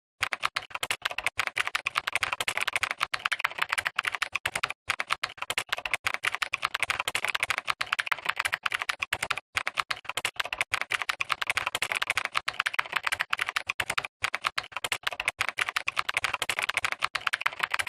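Computer keyboard typing: a fast, continuous run of key clicks with a few brief pauses, stopping abruptly at the end.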